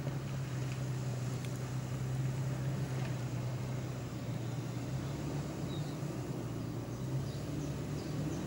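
Toyota FJ Cruiser's V6 engine running at low revs as the SUV crawls over a rocky trail, a steady low drone.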